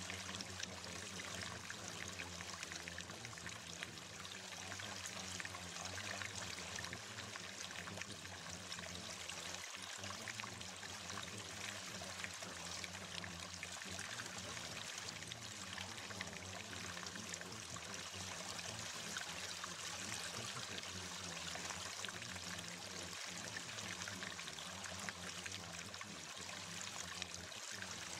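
Steady, unbroken sound of running water, like a flowing stream, over a low steady hum.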